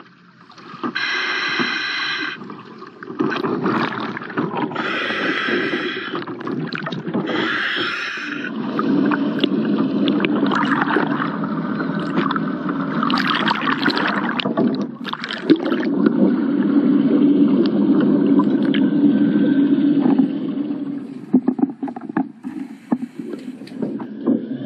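Scuba diving heard underwater: bubbles rushing and crackling past the microphone, with three short buzzy breaths through the regulator in the first eight seconds, then a low steady hum beneath the bubbles.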